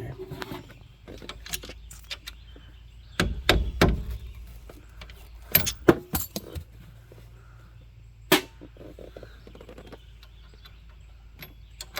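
Scattered metal clinks and knocks from tools and parts being handled during wheel hub work, with a heavier clunking about three to four seconds in and one sharp clink a little after eight seconds.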